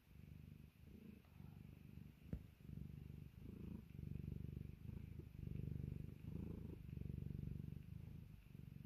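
Domestic cat purring close to the microphone, a low rumble that rises and falls with each breath and grows louder about four seconds in. A single sharp click sounds about two seconds in.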